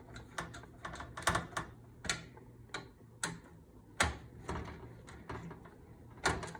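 Irregular sharp clicks and ticks of a screwdriver turning a CPU cooler's mounting screws down into a motherboard, the loudest about a second in, at about four seconds and near the end.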